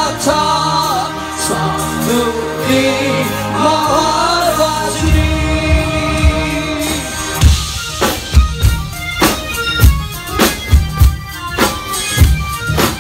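Live music from an ensemble of drum kits: a sung melody over sustained accompaniment, then about halfway through heavy, steady drum beats come in at roughly two a second.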